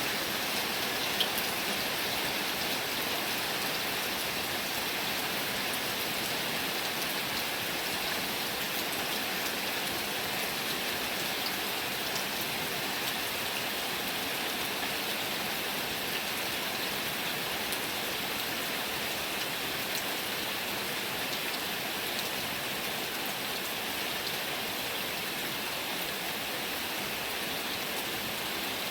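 Heavy rain falling steadily: a dense, even hiss with scattered drop ticks and one small click about a second in.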